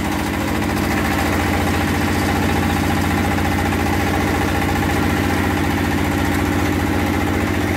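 Diesel engine of a raw clay brick-making machine running steadily, with a fast, even beat.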